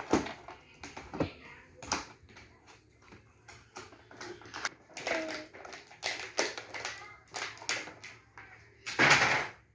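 A toy fridge's cardboard box and packaging being opened by hand: scattered taps, clicks and knocks of cardboard and plastic, with a louder rasping sound lasting about half a second near the end.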